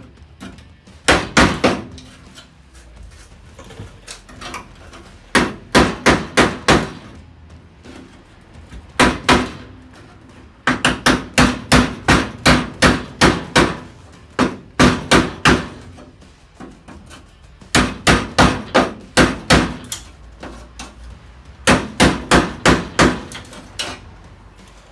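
A hammer driving a chisel into the steel seam of a classic Mini's boot floor lip, metal striking metal, to split the remains of the rear valance from the boot floor skin. The strikes come in runs of several, about three a second, with short pauses between runs.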